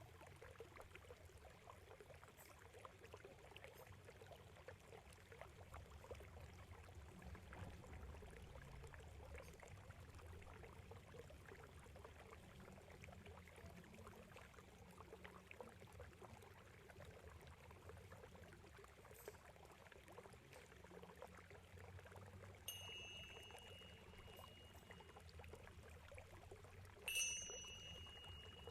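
Faint trickling water running steadily, then a small bell struck twice with a high ringing tone near the end, the second strike louder and ringing on.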